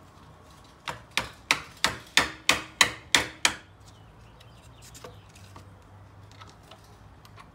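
A hammer striking an old, weathered wooden board about nine times in quick succession, roughly three blows a second, starting about a second in. Faint small clicks follow as pliers work at a nail in the board's edge.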